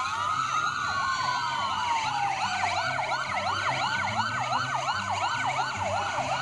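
Several fire engine sirens sounding together: a slow wail rising and falling, overlaid with a fast yelp sweeping up and down about three times a second.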